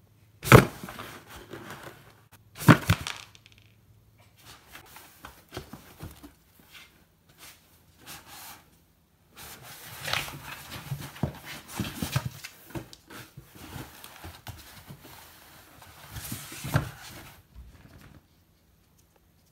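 A cat moving inside a cardboard box, knocking and scraping the box against a wooden floor. There are two sharp knocks in the first three seconds, then a long run of scraping, rustling and knocks in the second half with one louder knock, until the sounds stop shortly before the end.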